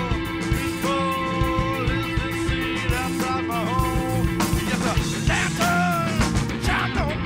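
Live rock band playing: electric guitars, bass and drums, with a man singing long held notes into the microphone.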